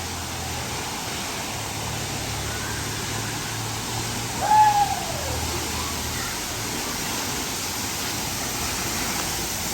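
Steady rushing of a waterfall. About four and a half seconds in, a short pitched call or voice slides down in pitch over it.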